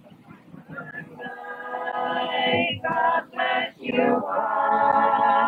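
A group of people singing a farewell song together, several voices holding long notes in harmony, starting about a second in.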